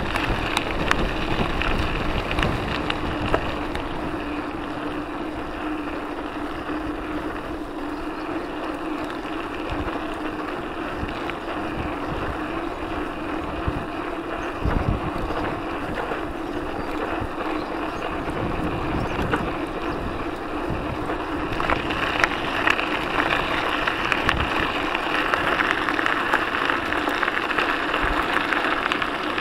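Mountain bike tyres rolling over a gravel and dirt trail, with wind rushing over the action camera's microphone and the bike rattling and knocking over bumps.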